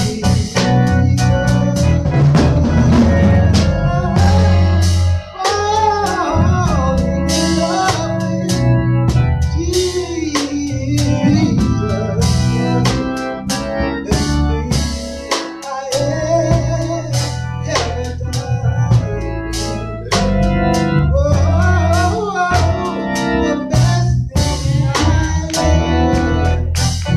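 Gospel music with an organ, a drum kit and a singing voice whose line bends and slides between notes.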